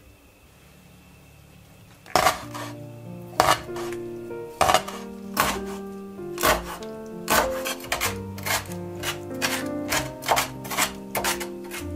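Kitchen knife chopping pickled shakushina greens on a wooden cutting board: sharp chops begin about two seconds in, spaced irregularly at first and coming quicker toward the end, over background music.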